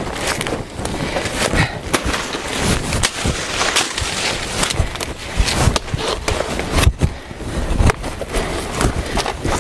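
Dry banana leaves and brush rustling and crackling, with many irregular snaps, as someone steps through and handles the leaf litter.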